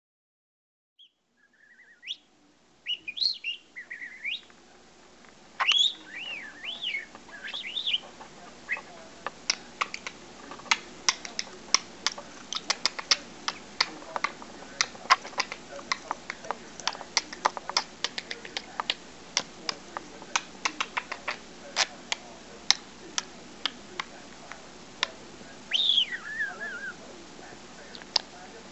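Budgerigar whistling and chirping in short gliding notes, then a long run of quick sharp clicks and ticks, and whistling again near the end.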